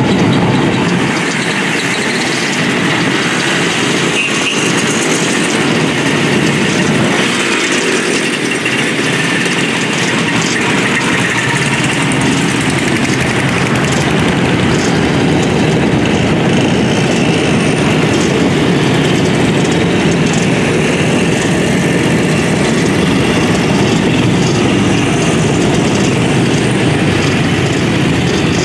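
A procession of vintage motorcycles, mopeds and scooters riding slowly past one after another, many small engines running together in a steady, continuous mix.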